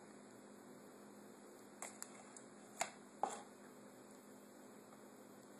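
Four light clicks of a measuring spoon tapping against a bowl and fork as canned pumpkin is scraped off into the dry ingredients, over a faint steady room background.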